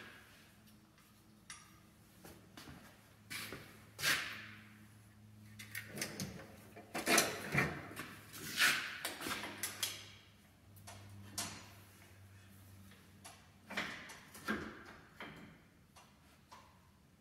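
Irregular metal clanks and short scrapes of hand tools and suspension parts being handled on a Jeep's rear axle, loudest in a cluster near the middle, over an intermittent low steady hum.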